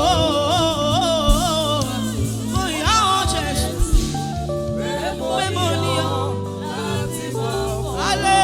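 Gospel music: a singer holding long, wavering notes over steady keyboard and bass chords, with a few sharp beats about one and four seconds in.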